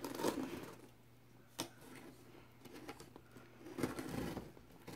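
A knife slitting the packing tape on a cardboard shipping box: faint scraping and rustling of tape and cardboard, with one sharp click about a second and a half in.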